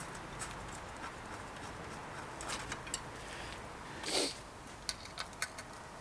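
Light clicks and taps of bicycle parts being handled with a gloved hand. A short scrape about four seconds in is the loudest sound, followed by three sharp clicks.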